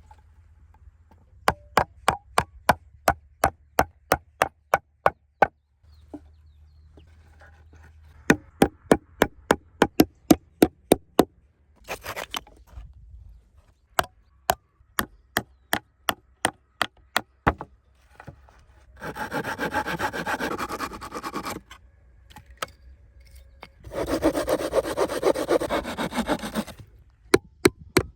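Hand tools working wood: three runs of sharp, regular taps, about three a second, then two longer scraping stretches of two to three seconds each near the end.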